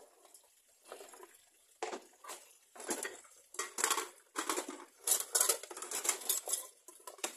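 Dishes clattering and knocking as plastic cups and ceramic plates are picked up and shifted around in a pile in a concrete washing sink; irregular knocks, sparse at first and busier and louder from about two seconds in.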